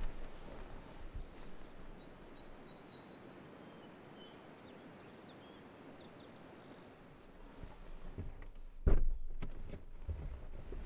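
Quiet morning outdoor ambience with a few faint bird chirps, then from about seven seconds in the rustle of a sleeping bag and gear being moved inside the back of a car, with a loud thump about nine seconds in and a few lighter knocks after it.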